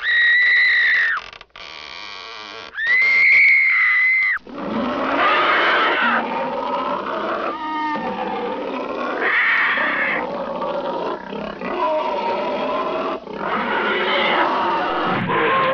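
Two loud, high squeals in the first four seconds, each dropping at its end, then a run of monster growls in several long, rough segments: a horror sound effect for the creature in the stove.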